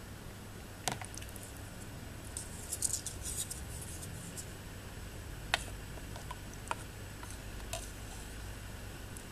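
A young red-eared slider turtle moving in a shallow plastic tub of water: scattered sharp clicks and, about three seconds in, a brief flurry of scratchy ticks, over a low steady hum.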